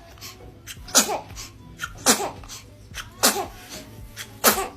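A baby sneezing four times in a row, about a second apart, each a sharp hissing burst with a short falling squeak of voice: a sneezing fit.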